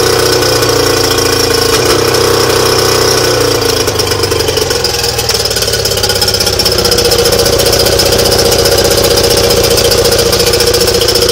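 Mercury 20 hp two-stroke outboard motor running on a test stand. Its speed eases down about two to four seconds in, then picks up about six seconds in and holds steady, louder.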